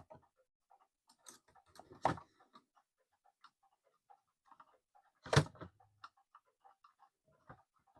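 Screwdriver clicking and scraping against the inside of a small cuckoo clock case while reaching for the movement's mounting screws, with louder knocks about two seconds and five seconds in. The knocks come from the screwdriver hitting the side of the case, which keeps it from reaching the screw head.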